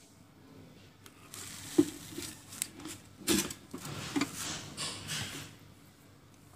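Handling noise: rustling and scraping with a few sharp knocks, the loudest about two seconds in and more near three and four seconds, as the phone recording it is moved about close over the board.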